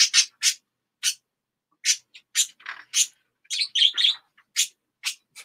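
Pet budgerigar chirping: a quick run of short, sharp chirps at the start, then scattered chirps with a short warbling stretch a little past halfway.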